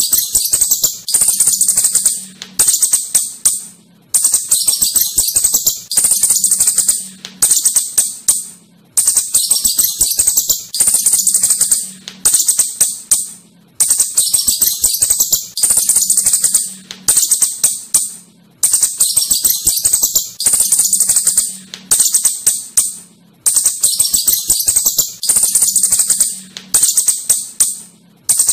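Asian house shrew (tikus clurut) giving rapid high-pitched chittering calls. They come in repeated bursts of a second or two, each strongest at its start and fading, with short breaks between.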